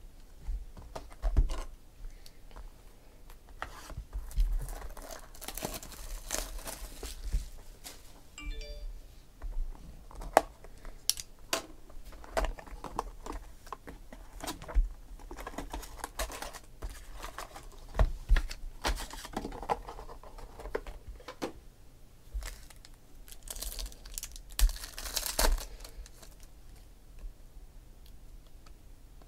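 Cardboard trading-card box opened and foil card packs handled and torn open: crinkling, tearing wrapper noise in two longer stretches, amid many taps and clicks of cards and packs being handled.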